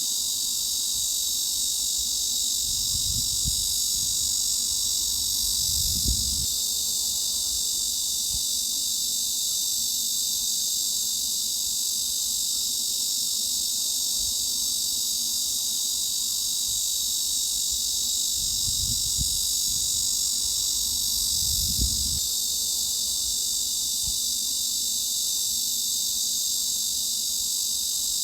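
Cicadas droning in a steady, unbroken high-pitched buzz, with a few soft low thumps underneath.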